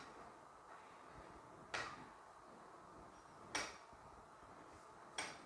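Pizza-wheel cutter clicking against a stone countertop with each stroke through rolled dough: four short, sharp clicks, about one every 1.7 seconds.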